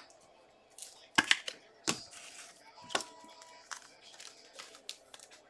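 A few scattered sharp clicks and taps, three of them louder and roughly a second apart, with softer ticks between.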